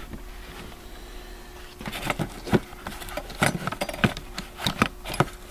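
Small loose tools clicking and knocking against each other and the drawer as they are rummaged through in an old wooden machinist's tool chest; irregular clicks begin about two seconds in, over a faint steady hum.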